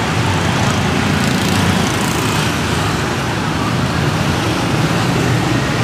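Steady street traffic, motorbikes and scooters running past with a continuous low engine hum.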